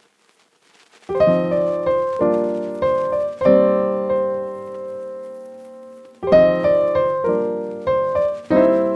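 Background music of piano chords starting about a second in, struck one after another and left to ring, with one chord held long in the middle.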